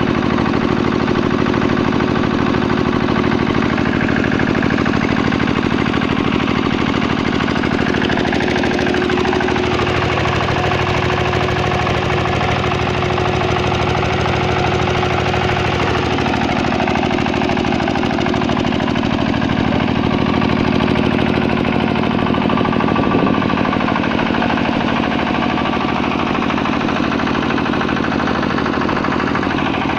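Water-cooled diesel generator's 12 HP engine running steadily at its governed speed, with a fast, even beat of firing strokes.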